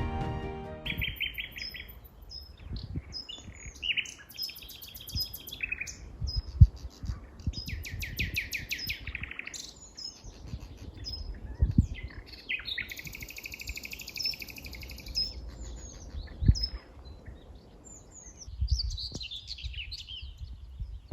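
Several songbirds singing, with rapid trills and repeated chirps overlapping one another. A few dull low thumps come through, the loudest about six and a half seconds in. Music fades out in the first second.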